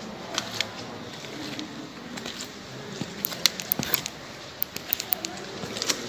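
Footsteps going down stairs: irregular sharp clicks and taps, a few at first and bunched in the second half, over a steady hiss.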